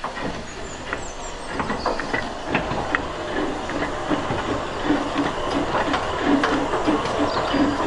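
Narrow-gauge saddle tank steam locomotive 'Edward Thomas' moving off slowly, with steam hissing and scattered clanks at first. From about halfway through, a regular exhaust chuff of about three beats a second sets in and grows slightly louder.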